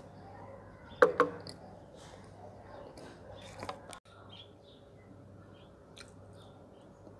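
A metal spoon clinking and scraping against a glass as soft, wet brown clay paste is scooped and eaten, with quiet wet chewing and no crunch. Two sharp clinks about a second in are the loudest sounds, with a few lighter clicks later.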